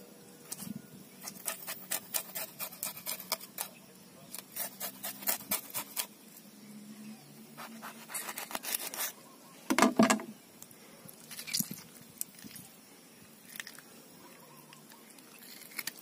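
Knife blade scraping the scales off a small fish, quick runs of short scratchy strokes. A louder thump about ten seconds in.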